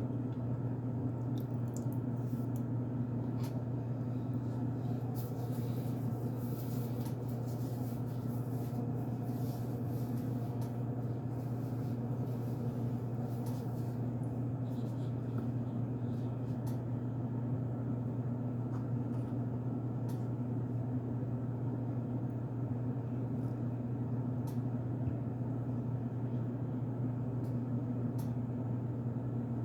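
Steady low hum throughout, with faint scattered crunching clicks from chewing unscented cornstarch, thickest between about 5 and 14 seconds in.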